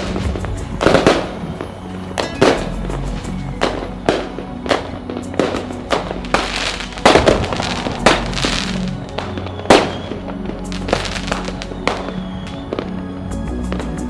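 Fireworks going off in a rapid, irregular string of sharp bangs, with a couple of longer crackling stretches midway. Music plays underneath throughout.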